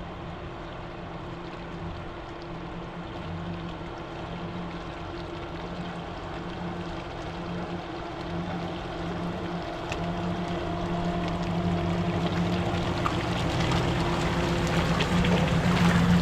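4x4 vehicle's engine running steadily through a river crossing, with water splashing and sloshing. Engine and water grow steadily louder, the splashing strongest near the end.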